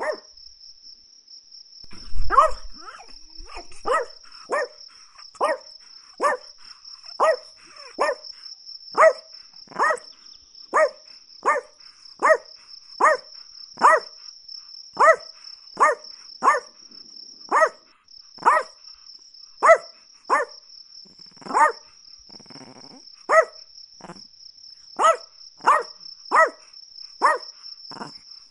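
Chihuahua barking over and over in sharp, high yaps, about three every two seconds, starting about two seconds in. A steady high-pitched tone runs underneath.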